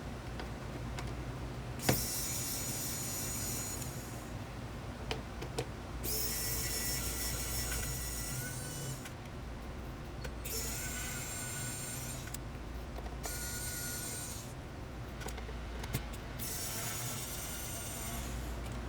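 Small electric screwdriver running in five short spells of a few seconds each, a steady motor whine with gear hiss, with a sharp click just before the first run.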